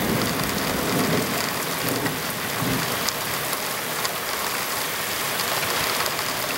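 Steady heavy rain of a summer thunderstorm, with scattered sharp ticks of drops hitting nearby surfaces. A low rumble of thunder dies away over the first few seconds.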